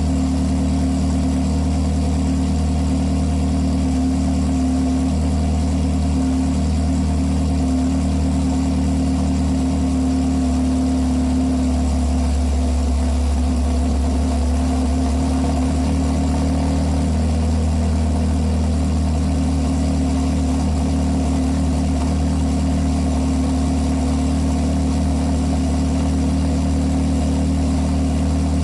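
Ferrari 360's 3.6-litre V8 running steadily at idle through an aftermarket MS-Racing Ver.4 exhaust.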